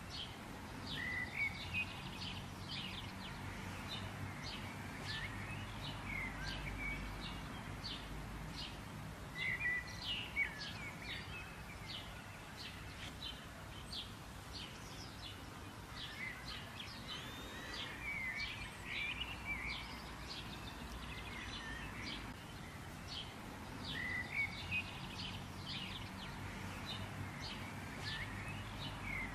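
Birds chirping over and over, in short quick notes with a few brief warbled phrases, over a steady low background rumble of outdoor noise.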